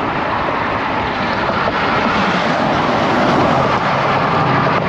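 Steady rush of wind on the microphone and road noise from a bicycle riding into a strong headwind, with traffic going by; a low engine hum rises briefly near the end.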